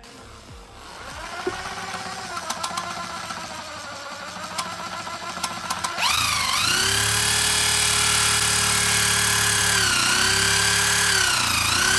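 Handheld drill spinning a valve in a Zhiguli cylinder head to lap it into its seat. The motor whine runs slower at first with a few light clicks. About six seconds in it jumps to a loud, steady high speed, then slows briefly twice near the end.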